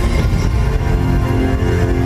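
Dramatic stage-show music over the theatre sound system: steady held chords over a heavy low rumble.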